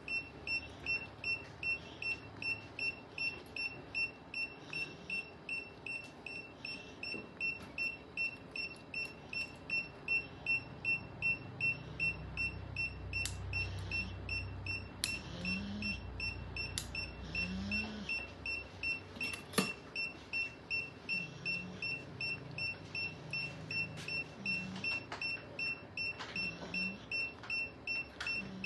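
Surgical monitor beeping at a steady high pitch, about one and a half beeps a second, pacing the anaesthetised cat's pulse. A few sharp clicks fall midway.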